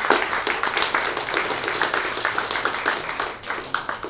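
Audience applauding: many dense, overlapping hand claps that thin out and die away near the end.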